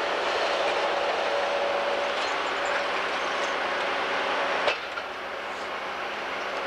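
Timberjack 618 grapple skidder running and driving on chained tires: a steady diesel engine drone with a held whine and faint clinking. A sharp click comes about two-thirds of the way through, after which the sound is somewhat quieter.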